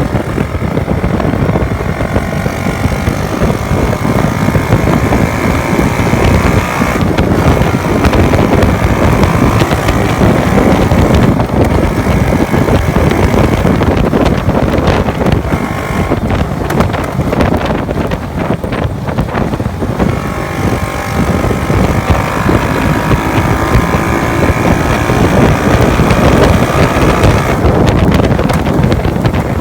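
Heavy wind buffeting on a phone microphone at highway speed, over the running note of a small single-cylinder four-stroke motorcycle engine, a Honda Wave 110, freshly overhauled.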